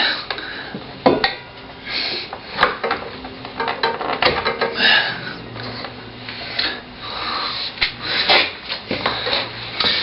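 Metal parts clinking, knocking and scraping as a motorcycle front wheel is worked into place by hand, with irregular clicks and a few sharper knocks, the loudest about a second in and just after four seconds.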